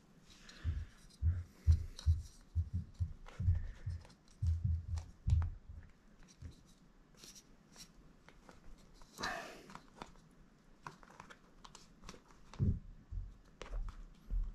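Handling noise as a rubber dry glove and its plastic cuff ring are worked into place on a drysuit: a run of dull thumps and knocks over the first five seconds or so, then scattered light clicks and a short rustle about nine seconds in.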